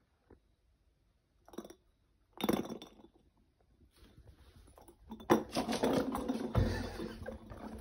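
A spiky rubber light-up ball toy is handled with two short rattles, then, about five seconds in, it is thrown and hits the tile floor, with a cat scrambling after it and a longer stretch of clattering, rubbing noise.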